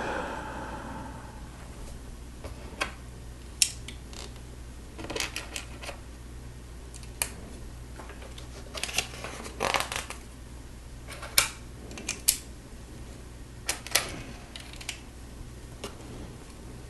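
Plastic Lego pieces clicking and clattering as they are handled and snapped together: scattered sharp clicks with a few short rattling runs.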